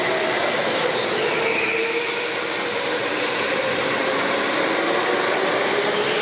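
Go-karts lapping an indoor track, their motors running as a steady wash of noise with pitched tones that slide up and down as they speed up and slow down.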